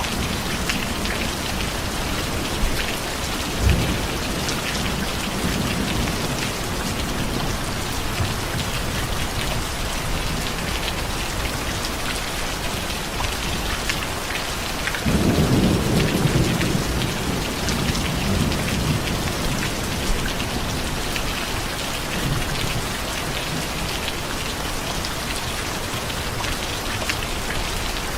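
Steady rain, with a low thump of thunder about four seconds in. About halfway through, a rumble of thunder starts suddenly and fades over several seconds.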